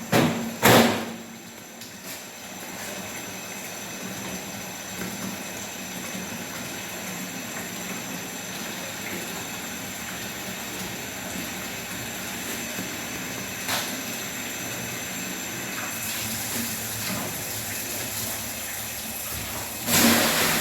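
Steady rush of running water, with a sharp knock near the start and another about two-thirds of the way through, and a louder clatter near the end.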